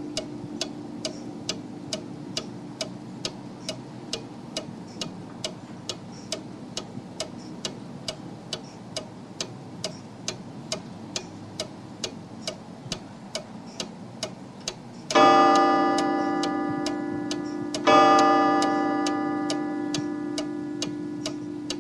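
Big mechanical wall clock ticking loudly and steadily, about two ticks a second. About fifteen seconds in it strikes twice, two loud ringing chime strokes under three seconds apart, each fading slowly under the ticking.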